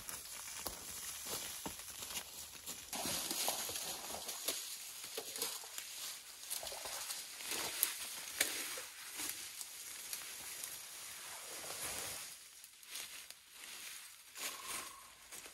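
Dry fallen leaves crunching and rustling underfoot, with a dead branch dragged through the leaf litter, in irregular crackles and short sharp snaps.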